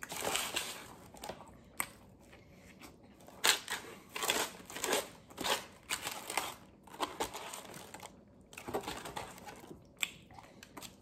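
Sub sandwich being handled in its paper wrapper and eaten: paper crinkling and close-up biting and chewing in irregular bursts.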